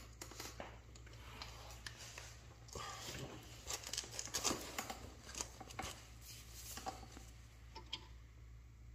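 Faint, irregular metallic clicks and rustles of hand tools at work on a small motorcycle engine: a torque wrench and a breaker bar being fitted and pulled on the cam sprocket bolt. The clicks are busiest in the middle of the stretch, over a steady faint low hum.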